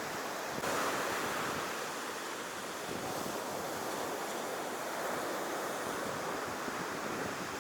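Ocean surf washing up on a beach as a steady rush of water, with some wind on the microphone.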